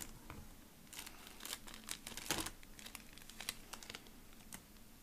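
Plastic snack wrapper being handled and opened, with faint, irregular crinkling and crackling.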